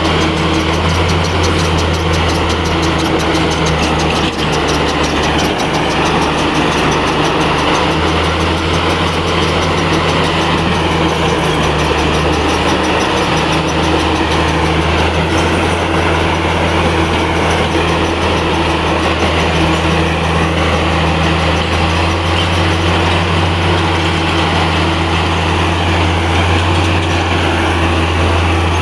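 Bulldozer's diesel engine running steadily with a deep, even hum.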